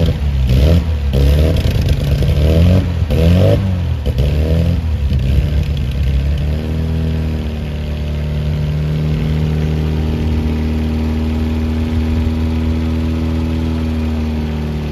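Classic Mini's small four-cylinder engine revved in several short blips, then settling to a steady idle about six seconds in.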